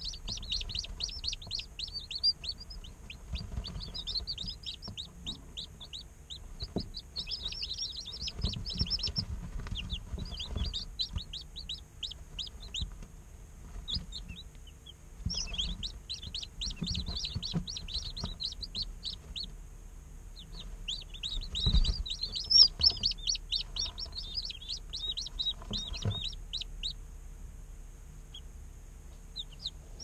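A small group of day-old chicks peeping in fast runs of high chirps, broken by short pauses, and falling quiet near the end. Under the peeping are soft low thumps, with one louder thump about two-thirds of the way through.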